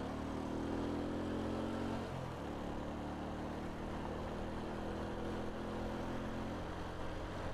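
Mondial motorcycle engine running under way, its pitch edging up, dropping about two seconds in, then holding steady.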